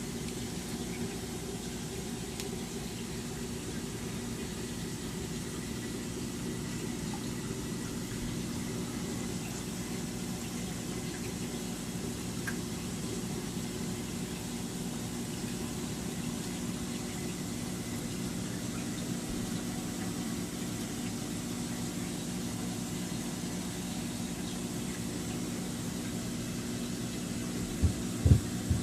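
Steady low hum and water rush of reef aquarium pumps and filtration, with two short low thumps near the end.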